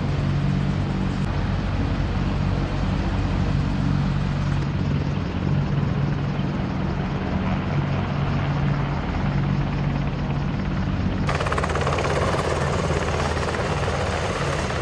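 AH-64D Apache attack helicopters running their rotors and twin turboshaft engines while taxiing and lifting off, a continuous rotor noise with a deep, steady low beat. About 11 seconds in, the sound abruptly turns brighter and fuller in the middle range.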